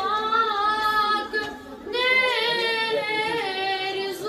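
A boy singing a Kashmiri naat solo and unaccompanied, in two long phrases of held, wavering notes with a short break between them about a second and a half in.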